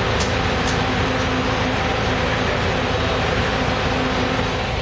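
Transit vehicles running steadily: an even rush with a constant low hum, and two brief high hisses about half a second apart near the start.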